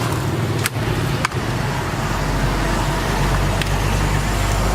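Two sharp clicks about a second apart, then the mini refrigerator's compressor starting with a low steady hum that settles into running, under constant traffic noise.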